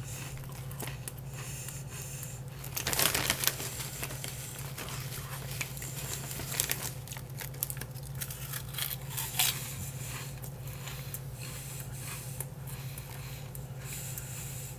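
Potato chip bag crinkling as it is handled, loudest about three seconds in, with smaller crisp rustles and a chip being bitten and chewed later on. A steady low hum runs underneath.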